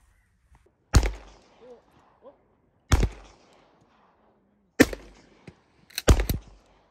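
Four gunshots fired one at a time, roughly one to two seconds apart. Each is a sharp crack followed by a short fading echo.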